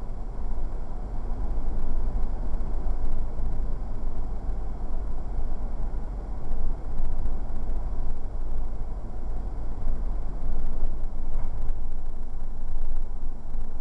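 Road and engine noise of a moving car heard from inside the cabin: a steady low rumble with a haze of tyre noise on top.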